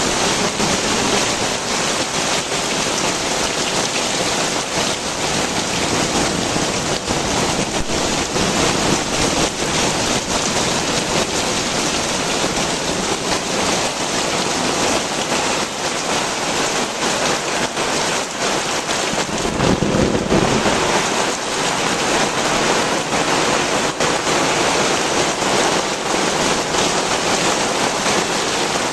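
Heavy rain pouring down steadily, with a dense patter of drops striking nearby surfaces. A brief low rumble comes about two-thirds of the way through.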